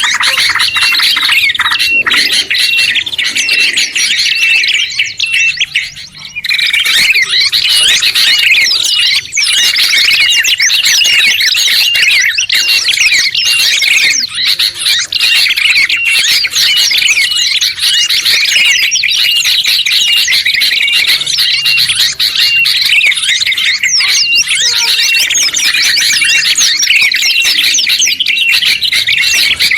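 Dense layered songbird chatter from a mixed masteran recording of trucuk (yellow-vented bulbul), prenjak kepala merah, kutilang (sooty-headed bulbul) and pleci (white-eye): fast trills and chirps overlapping, with one short note repeating steadily more than once a second. The chatter briefly drops out about six seconds in.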